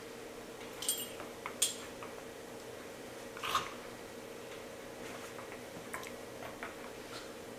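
A dog pawing and nosing at a cat in a fabric pet bed on a hardwood floor: a few scattered light clicks and clinks, the sharpest about a second in and near the middle, over a steady low hum.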